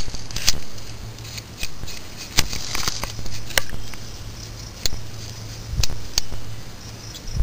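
Irregular sharp clicks and knocks of hand tools and metal parts being worked on a van's rear drum brake assembly, about ten in all, with a short scrape about three seconds in.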